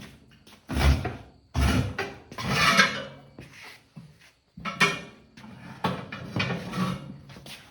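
A tire spoon levering a tire bead off an original steel wheel rim, making metal scraping and clanking with rubber rubbing. It comes as several irregular strokes with short pauses between them.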